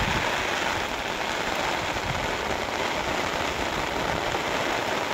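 Steady rain, an even hiss with no pauses.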